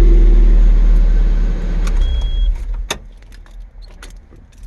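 Nissan Frontier's four-cylinder engine idling, then switched off about two seconds in and winding down, a test of the newly fitted ignition switch. A sharp click and a jingle of keys follow.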